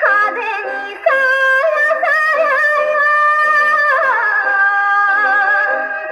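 A 78 rpm shellac record of a Japanese folk-style (min'yō) song playing on a Columbia Viva-tonal Grafonola acoustic phonograph. A woman's voice sings a long, ornamented phrase over the accompaniment, with a high note held for a couple of seconds in the middle. The sound is thin, with no bass.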